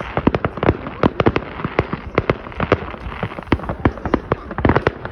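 Fireworks going off in a dense barrage: rapid, irregular bangs and pops, several a second, overlapping over a continuous crackle.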